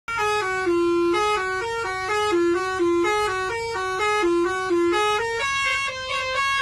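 Indonesian bus 'telolet' musical horn (Basuri type) playing a quick tune of short stepped notes, then holding longer notes in the last second or so.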